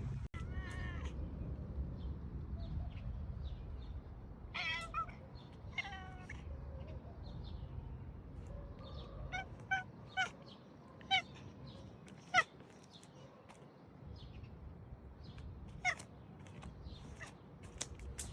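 A cat meowing repeatedly, with a few drawn-out meows in the first six seconds and then a run of short, sharp calls.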